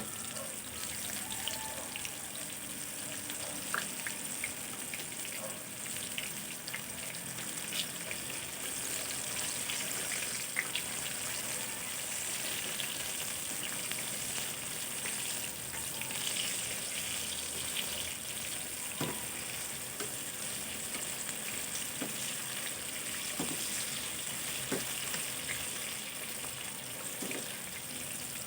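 Food frying in oil in a pan, a steady sizzle, with a few light clicks from a utensil against the pan.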